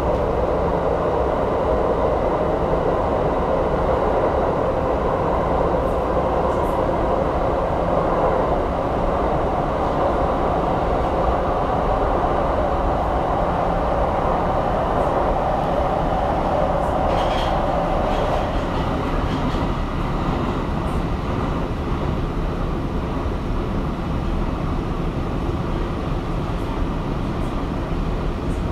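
Tokyo Metro 2000-series subway train running, heard from inside the car: a steady rumble of wheels on rail with a mid-pitched hum that fades about two-thirds of the way through.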